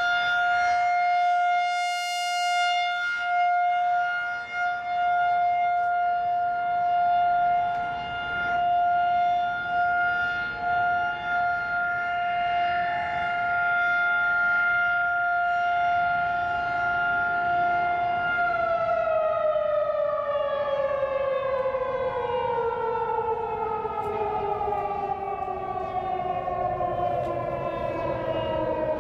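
Federal Signal 2001-130 rotating electromechanical outdoor warning siren sounding a steady tone, then winding down with a steadily falling pitch from about two-thirds of the way through.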